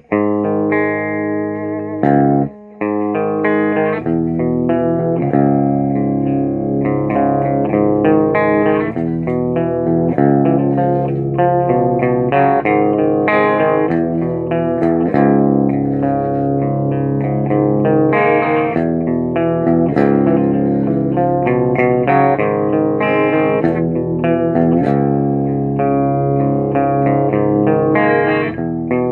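Electric guitar played through a Peavey Bandit 112 combo amplifier: a run of chords and picked notes that goes on without pause apart from a brief break about two and a half seconds in.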